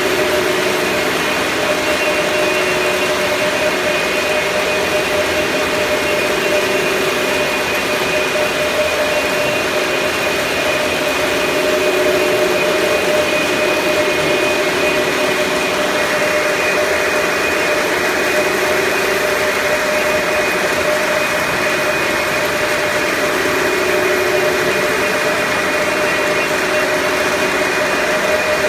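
Steady machine noise: a constant hiss with a few steady whining tones that hold level throughout.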